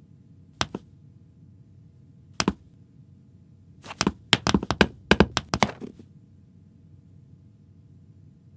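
Sharp knocks from hard objects handled on a tabletop: a double knock, another double knock a couple of seconds later, then a quick, uneven run of about ten knocks lasting some two seconds.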